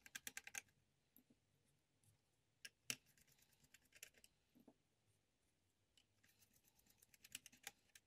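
Faint, sharp clicks of a Phillips screwdriver working screws out of a Sony Vaio laptop's plastic bottom case. They come in short clusters: a quick run at the start, two louder clicks about three seconds in, a few more around four seconds, and a rapid run near the end, with near silence between.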